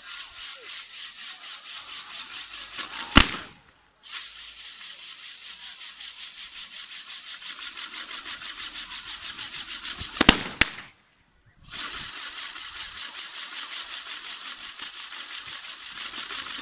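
Spinning firework wheel throwing sparks with a continuous run of rapid crackling pops. About three seconds in and again about ten seconds in, the crackling ends in a loud bang and stops for a moment before the next charge takes up the crackle.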